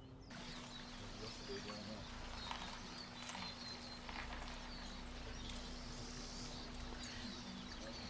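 Small birds chirping with many short high calls over a steady outdoor background, with a low steady hum underneath.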